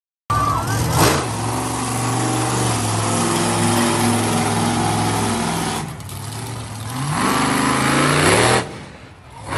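Monster truck engine running loud and steady, with a sharp bang about a second in; it eases off around six seconds in, then revs up with rising pitch before dropping away near the end.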